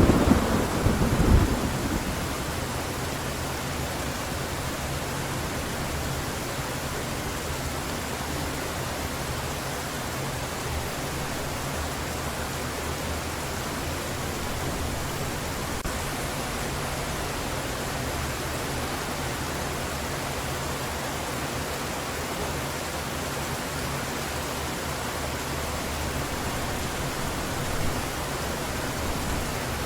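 Heavy rain falling steadily. A loud thunder rumble fades out in the first second or two.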